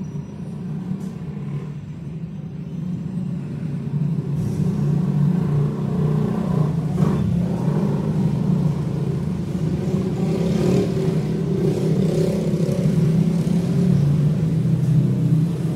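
Steady low rumble of an engine running, growing louder over the first few seconds and then holding.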